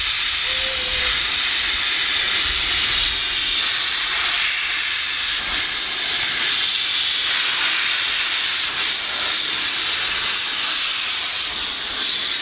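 Small saddle-tank steam locomotive moving off slowly with steam hissing from around its cylinders, a loud, steady hiss.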